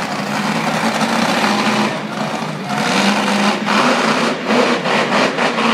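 Monster truck engine running, a loud steady drone that rises and falls a little in level.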